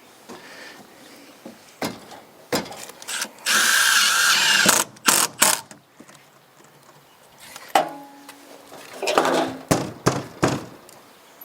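A cordless drill running for about a second, driving a screw, among scattered knocks and clatter of work on the wall.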